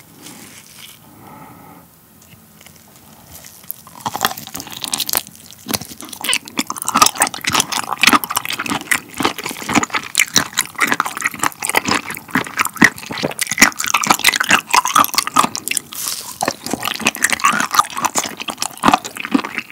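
Close-miked chewing of raw abalone: a dense run of wet, crunchy clicks and bites that starts about four seconds in, after a quieter moment while the piece is dipped in sauce.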